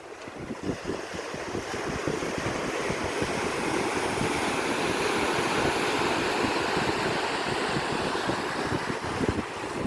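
Ocean surf on a beach: a wave's rush swells over a few seconds and eases again, with wind buffeting the microphone.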